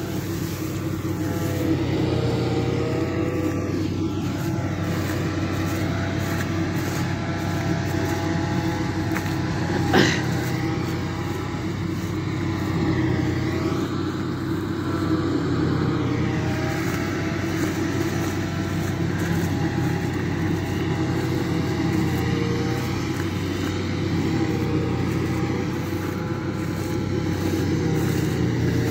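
Farm tractor's diesel engine running steadily, its pitch wavering slightly, with a single sharp click about ten seconds in.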